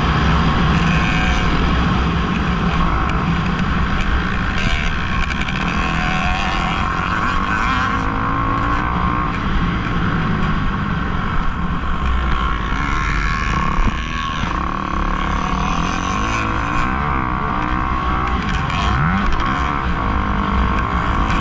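Kawasaki KX250F's four-stroke single-cylinder engine running hard on a motocross track, heard from aboard the bike, its pitch rising and falling with the throttle. It dips briefly about 14 seconds in.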